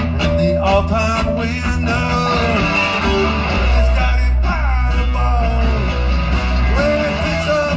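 Live rock band playing an instrumental passage: electric guitars, bass and drums.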